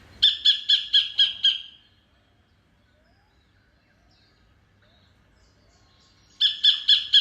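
Sacred kingfisher calling: a run of about six sharp, evenly spaced notes, about four a second, then a pause and a second run starting near the end. Faint chirps from other birds fill the gap.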